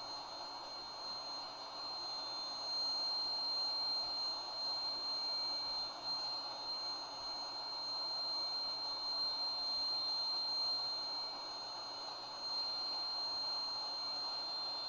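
Electric air blower running steadily with a constant high whine, pushing air through a hose into an inflatable suit.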